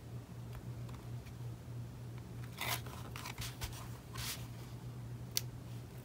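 Faint handling of paper and cardstock by hand: a few short rustles and scrapes around the middle and a sharp tick near the end, over a low steady hum.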